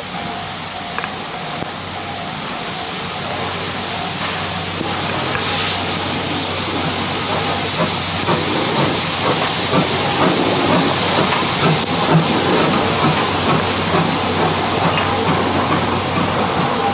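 C11 steam locomotive train passing at low speed, steam hissing from the open cylinder drain cocks over the rumble and clatter of the wheels. It grows steadily louder as the engines draw close and go by.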